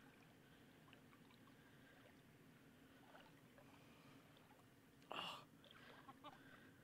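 Near silence, broken about five seconds in by one short rush of noise, with a few faint soft sounds just after.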